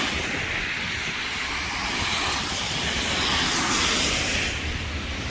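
Tyres hissing on a wet, slushy street as traffic passes, over a low rumble, swelling twice as vehicles go by.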